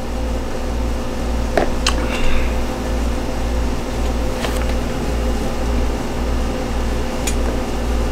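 Steady low mechanical hum, with a few short light clicks and taps: a cluster about two seconds in, one mid-way and one near the end.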